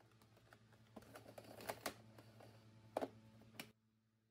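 A few light clicks and knocks of hard plastic as the vacuum cleaner is handled, over a faint steady low hum; the sound drops away suddenly about three and a half seconds in.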